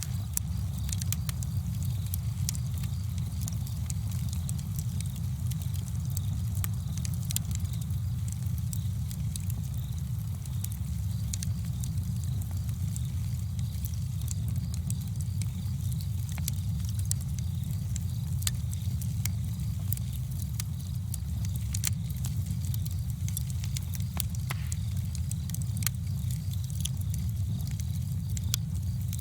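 Campfire burning: frequent, irregular sharp crackles and pops from the burning wood over a steady low rumble.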